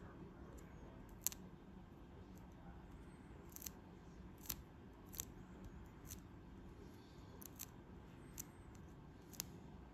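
Faint, sharp clicks and ticks, about a dozen scattered irregularly, from fingers handling a small plastic model turret while dabbing and peeling blu-tac off it. The loudest click comes a little over a second in, over a low steady room hum.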